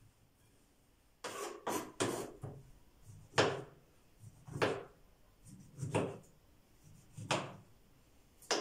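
Knife slicing a peeled orange into rounds on a cutting board. There are a series of sharp cuts: a quick few after about a second, then one roughly every second and a quarter.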